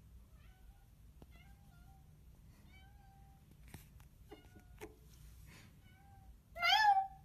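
A cat meows once, loudly, near the end, with a few faint short chirps and soft clicks before it.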